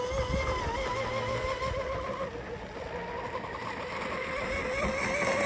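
Proboat UL-19 RC hydroplane running at speed, its brushless electric motor and propeller giving a steady high whine that wavers slightly in pitch, growing a little louder near the end.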